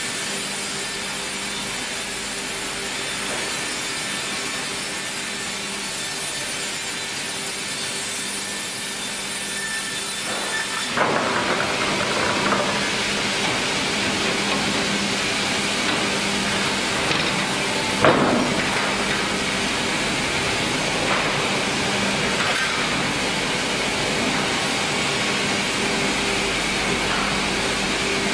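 Sawmill band saws running. At first there is a steady hum with a thin high whine. About a third of the way in it switches abruptly to louder, rougher sawing as a wooden board is cut, with a single sharp knock about two-thirds of the way through.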